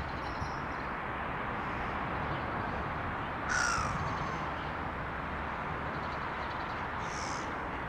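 A crow-family bird calling: one call about three and a half seconds in, dropping slightly in pitch, and a fainter, shorter one near the end, over a steady background hiss.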